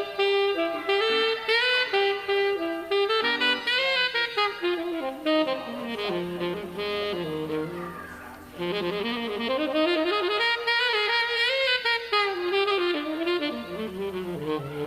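A single horn playing a jazzy warm-up line alone during a sound check, its notes sliding and bending, with a lower, quieter passage a little past halfway.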